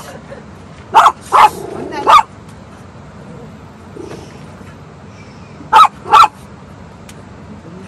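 A Maltese dog barking in short yaps: three quick barks about a second in, then two more near the six-second mark.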